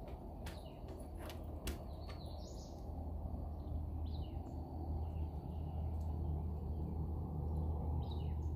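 Songbirds chirping a few times, short falling whistles about two and a half, four and eight seconds in, over a steady low rumble of outdoor background noise.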